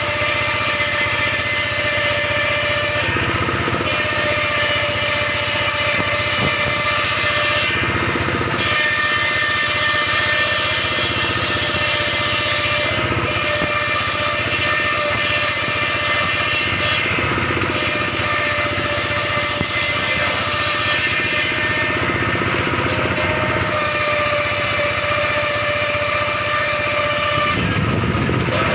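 Table circular saw running steadily and ripping wood into roof battens. The high, hissing part of the sound breaks off briefly about every four to five seconds, between strips, while the motor and blade keep running.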